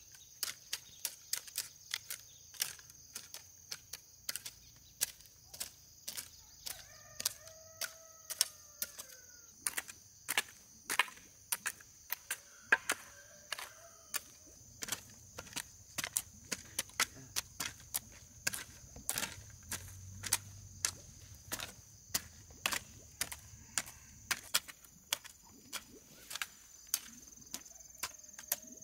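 Repeated sharp knocks, about two or three a second, over a steady high thin whine.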